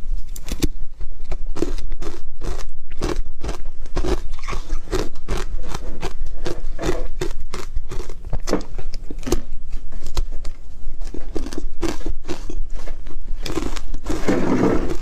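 Hard ice cubes coated in matcha powder being bitten and chewed right at the mic: a steady run of sharp, loud crunches, about three a second. Near the end, ice cubes scraping and clattering in a plastic tub as they are scooped out with metal tongs.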